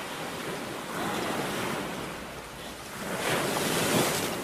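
Ocean surf washing steadily with a breeze, a wave surging louder about three seconds in.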